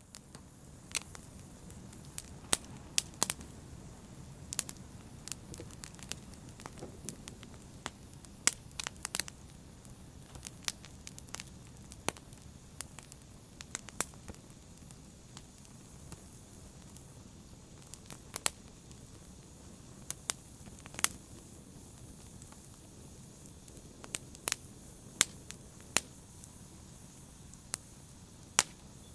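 Wood fire burning in a fireplace, crackling: sharp, irregular pops and snaps, a few every couple of seconds, over the steady low noise of the flames.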